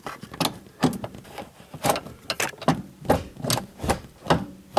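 Irregular clicks and knocks of hand tools and metal parts being handled, two or three sharp knocks a second.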